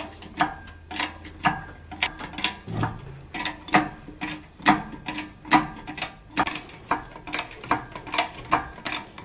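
Hydraulic engine hoist being pumped by hand, a steady run of metallic clicks about two to three a second, as it lifts a Caterpillar D4's steering clutch assembly.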